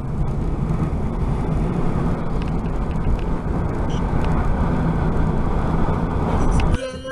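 Steady road and engine noise of a car driving, heard from inside the cabin through a dash cam. It cuts off suddenly near the end.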